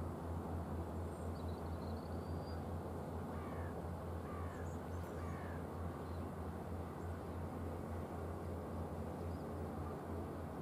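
Steady low outdoor rumble, with a bird giving three short calls about halfway through and a faint high rising whistle near the start.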